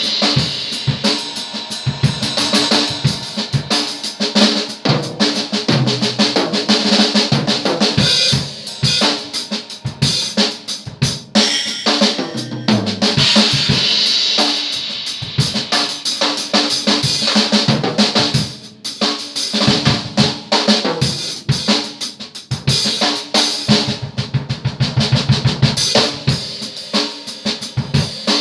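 Acoustic drum kit played continuously: fast strokes on kick drum, snare and toms under washes of cymbals.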